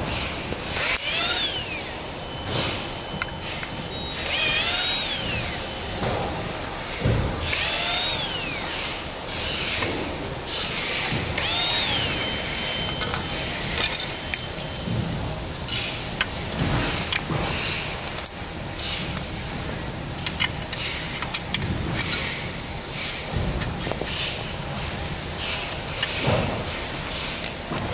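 Handheld power drill run in short bursts, each spinning up and winding back down; this happens four times in the first half. Scattered knocks and clatter of tools on metal run throughout.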